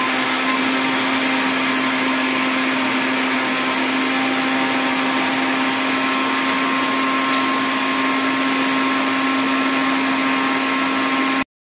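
Preethi Blue Leaf MG 139 mixer grinder's motor running at speed with the juicer jar fitted, blending fruit with water into juice. A loud, steady whir with a constant hum and a higher tone, which cuts off suddenly near the end.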